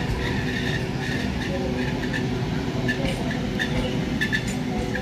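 Eastern Railway electric multiple-unit local train rolling past, its wheels giving a steady rumble on the track. Short high squeaks come every second or so.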